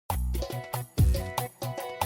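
Background music that starts abruptly: a tune with a steady beat and strong bass notes.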